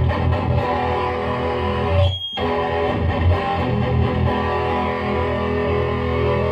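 Heavily distorted electric guitar riffing from a Gibson Les Paul through a Lone Wolf Audio Bullet Belt pedal into a Peavey 6505 amp and 2x12 cab, with strong low chugging notes. The playing stops for a moment about two seconds in, then carries on.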